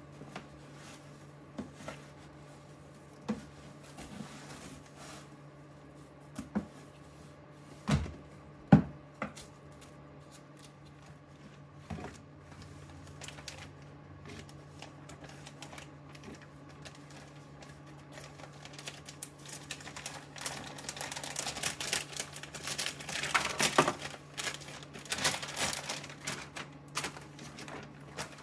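Scattered knocks and scrapes of a hand scoop in a plastic tub of white millet grain, then from about twenty seconds in a run of crinkling as clear plastic mushroom grow bags are pulled apart and opened. A low steady hum runs underneath.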